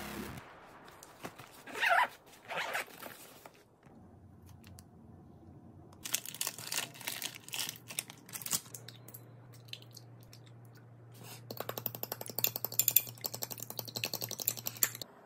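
Kitchen handling sounds: rustling as items are packed into a lunch bag, then crinkling of a packet over a pot, then a fork beating eggs in a glass measuring cup with rapid, even clicks against the glass over the last few seconds.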